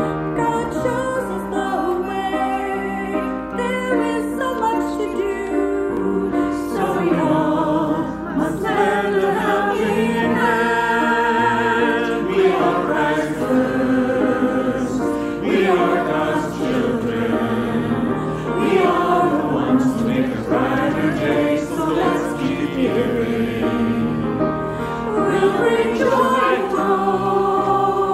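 Church choir singing a song in parts, with instrumental accompaniment.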